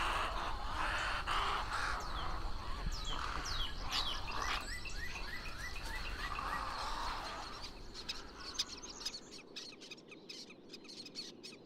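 A roosting colony of wading birds, herons and ibises, calling all at once: many overlapping harsh squawks and short chirps, thinning out and growing quieter over the last few seconds.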